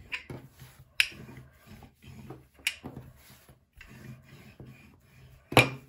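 Wooden rolling pin rolling yeast dough out on a floured wooden worktop: soft rubbing strokes back and forth, with three sharp wooden knocks as the pin comes down on the board.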